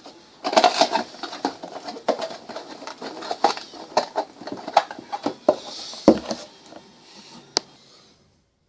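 Lego Technic set and its packaging being handled: a quick run of rustles and light clicks, with a heavier knock about six seconds in and a single sharp click near the end.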